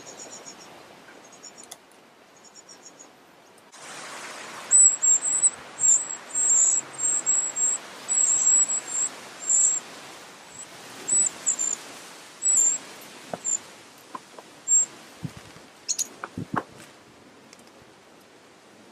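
Eurasian wren nestlings begging in the nest: a run of very high, thin squeaks in short irregular bursts, starting about five seconds in and lasting about ten seconds. A few soft knocks near the end.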